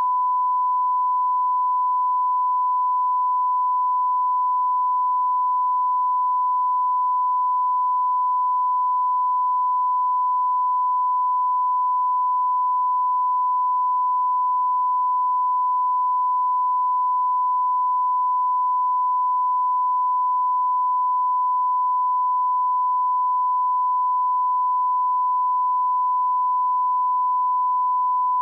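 Steady 1 kHz test tone: a single pure pitch held at constant level without a break, the line-up tone recorded at the head of a broadcast programme tape.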